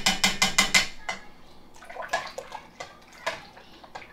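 Wire whisk clinking against the side of a stainless steel pot while yogurt starter is whisked into warm milk. Quick strokes come about seven a second for the first second, then scattered lighter clinks and taps.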